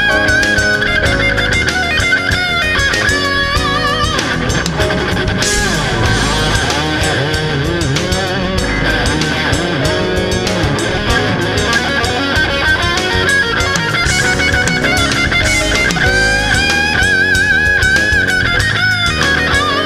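Instrumental rock–jazz fusion played by a band of electric guitar, bass, keyboards and drums. An electric guitar lead plays held notes with vibrato over a steady rhythm section.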